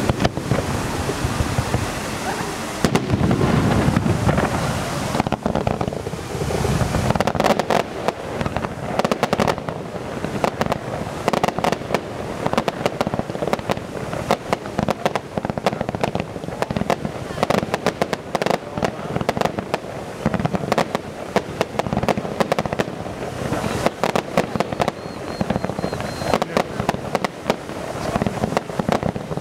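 Fireworks display: aerial shells bursting in a continuous volley of bangs and rapid pops, heaviest a few seconds in.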